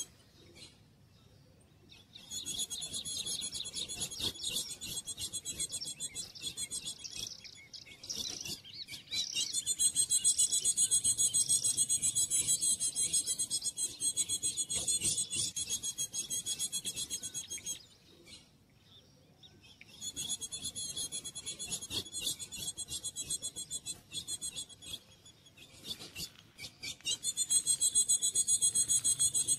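Female ultramarine grosbeak (azulão) calling: a rapid, high-pitched chipping repeated in long trains of several seconds, with short breaks between them.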